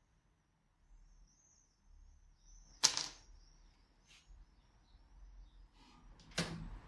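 A sharp metallic clink with a brief high ring about three seconds in, then a duller knock near the end, as metal parts or tools are handled and set down.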